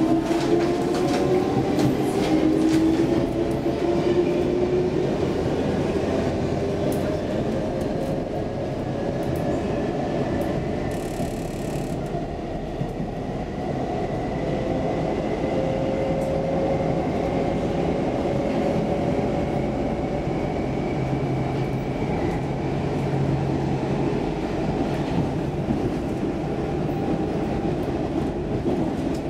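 Interior of a Stockholm Metro C14 train car accelerating away from a station: the motor whine rises steadily in pitch over the first several seconds, over a constant rumble of wheels on rail. The train then runs on at speed through the tunnel.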